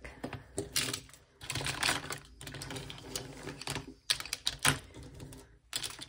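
Small plastic and silicone fidget toys being put back into a plastic tray, making irregular clicks, knocks and light rattles, a few louder knocks about a second in and past the middle.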